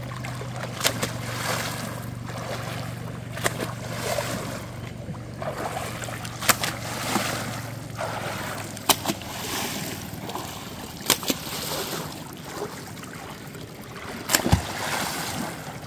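River water splashing and sloshing around a wading man, with sharp knocks about every two to three seconds as a wooden pole is beaten in the water and among the rocks to drive fish out of their caves toward a trammel net.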